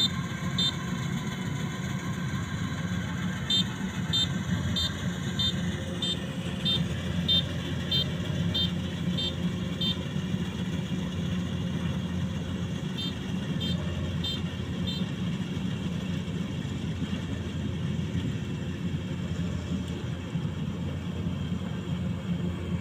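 Rice combine harvester running steadily as it cuts through the paddy, a constant low engine hum. Short high beeps, about two or three a second, come in runs several times over it.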